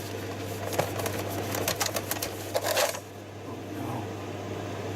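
Quick small clicks and scratchy taps of a thermal label printer's plastic case and parts being handled and brushed clean, over a steady low hum. The clicking stops about three seconds in, leaving the hum.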